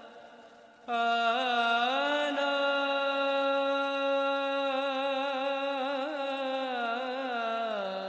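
Devotional chant: a single voice holds one long sung note for about seven seconds, wavering slightly, and steps down in pitch near the end.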